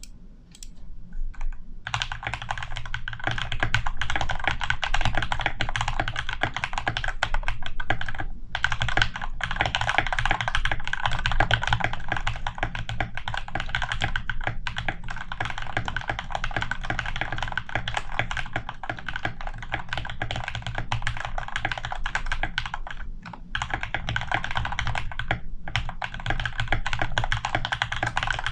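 Rapid typing on a modded RK68 mechanical keyboard with unlubed Gateron Yellow and RK Red linear switches, stock stabilizers lubed with dielectric grease, painter's tape on the PCB and PE foam between PCB and plate. A few single keystrokes at first, then a dense, continuous clatter of keypresses from about two seconds in, broken by a few brief pauses.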